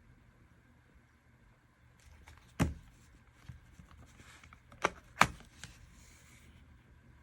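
A plastic air-conditioner remote control being handled: light rustling with a few sharp plastic clicks, the loudest about two and a half seconds in and two more close together about five seconds in.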